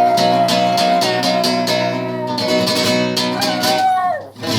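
Dog howling along to a strummed flamenco guitar playing a siguiriya: one long held howl that slides downward near the end, over repeated guitar strums.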